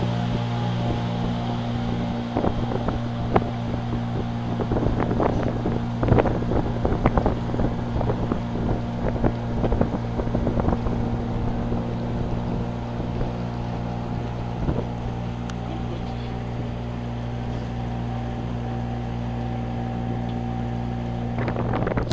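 A small motorboat's engine running at a steady speed, with wind on the microphone. Irregular knocks and thumps come through during the first half.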